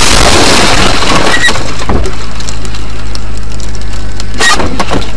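Vehicle crash on a dash-cam microphone: a sudden, overloaded burst of crunching and cracking that goes on for several seconds, with more sharp cracks near the end.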